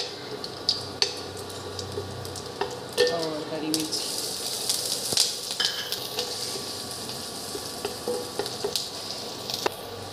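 Cumin and carom seeds sizzling in hot oil in a kadhai, stirred with a wooden spatula that taps and scrapes the pan. About three seconds in, chopped green chillies go into the oil and the sizzling grows louder.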